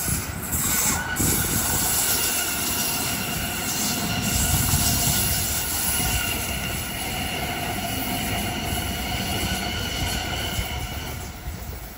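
Sydney Trains Oscar H-set electric multiple unit running close past: wheels rumbling on the rails under a steady high whine. It is loudest about halfway through and dies away near the end as the train moves off.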